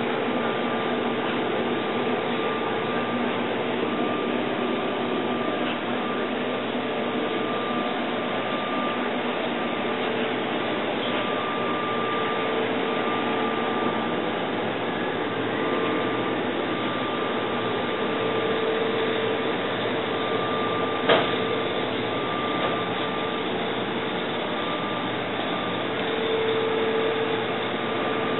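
Steady hum and whir of running bakery machinery, with pitched tones that come and go every few seconds and a single sharp click about three-quarters of the way through.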